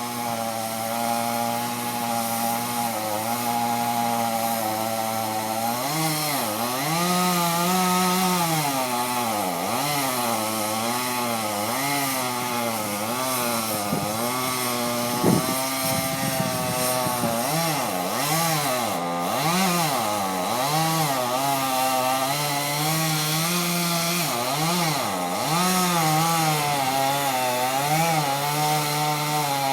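Chainsaw running and cutting into a big tree trunk, its engine pitch rising and dipping again and again as it works through the wood. There is one sharp knock about halfway through.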